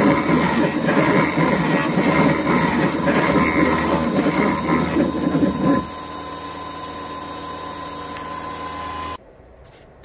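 CNC-converted X2 mini mill boring a half-inch hole with a three-flute carbide end mill at 4500 RPM: loud chip-cutting noise over the spindle whine, with the feed hesitating in a start-and-stop way as it goes around. About six seconds in the cutting stops and the spindle runs on alone with a steady whine, then the sound cuts off suddenly near the end.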